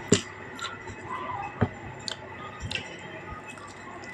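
Person eating chicken and tofu: chewing and wet mouth sounds, with a few short sharp clicks.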